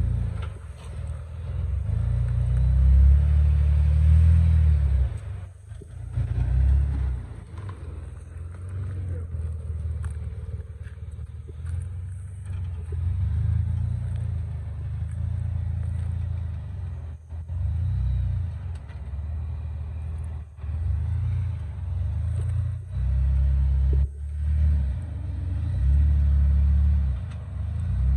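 Low engine rumble of a Jeep Wrangler crawling over granite boulders in low gear, rising and falling every few seconds as the throttle is fed on and eased off.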